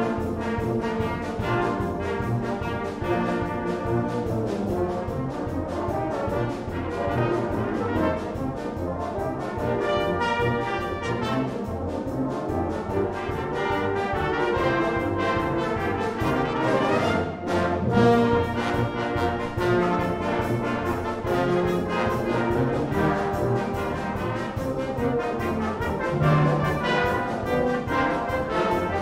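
Brass band of cornets, euphoniums and tubas playing a lively piece under a conductor, with a short break about seventeen seconds in before a loud full-band entry.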